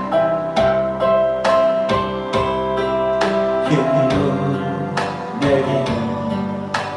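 Instrumental backing track playing between sung lines: guitar over held chords with a steady beat of about two a second.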